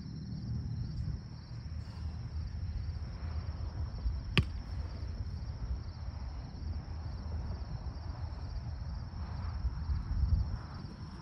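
Steady, pulsing trill of insects over a low steady rumble, with one sharp click about four seconds in.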